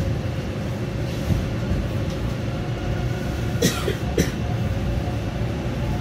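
Rumble inside a TTC Line 2 subway car as it pulls out of a station and gathers speed, with two sharp clacks a little past halfway.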